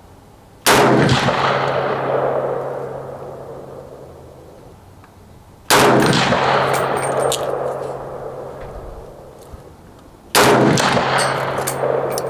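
Three single shots from a Century Arms Model 1960 milled-receiver AK-47 firing 7.62x39 ammunition, about five seconds apart, each followed by a long echoing decay of several seconds.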